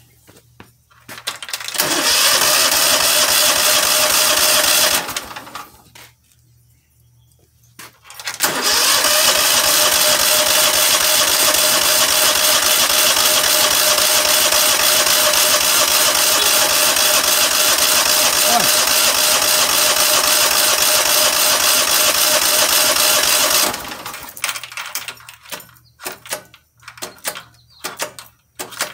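Cub Cadet HDS 2145 lawn tractor engine cranking on its starter without catching, powered from a jump-starter pack. There is a short crank of a few seconds, a pause, then one long steady crank of about fifteen seconds that cuts off, followed by irregular clicking. The engine will not start, with a stuck choke and a fuel problem under diagnosis.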